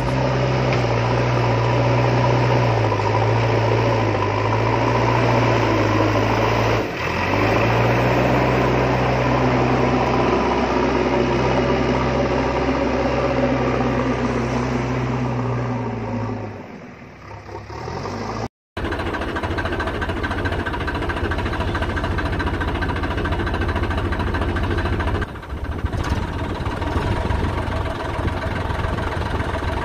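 Engine idling steadily with a low, even hum. It fades down about two-thirds of the way through, then after an abrupt cut a similar idling engine sound carries on.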